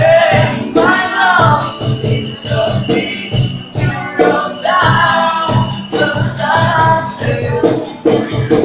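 Street band playing a slow pop ballad: a singer's voice over a steady high shaken-percussion beat, about two to three strokes a second, with a pulsing bass line.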